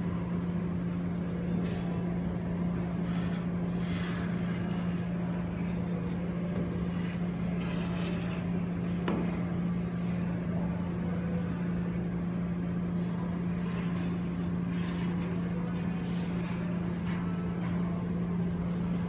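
Steady machine hum: one constant low drone over an even rushing noise, with a few faint knocks here and there.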